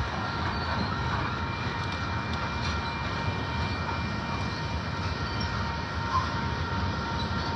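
Train passing by: a steady rolling rumble of railcars on the track, with a few faint steady high tones held over it.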